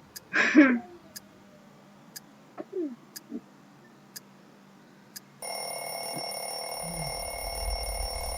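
A clock ticking about once a second, with a short loud sound sliding down in pitch about half a second in. About five seconds in, a steady electronic alarm tone starts abruptly and keeps sounding, with a low rumble joining it near the end.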